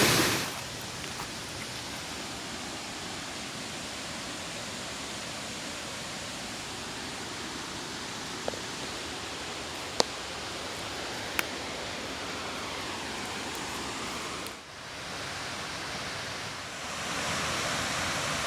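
Steady rushing hiss of falling water from a waterfall, with a few faint sharp clicks around the middle. It dips briefly, then grows a little louder near the end.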